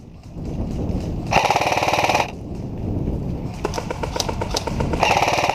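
Airsoft electric rifles firing on full auto: a rapid burst of about a second, fainter fast fire after it, and another short burst near the end.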